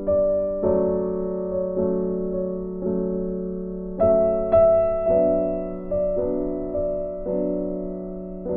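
Background piano music, slow soft chords struck about once a second.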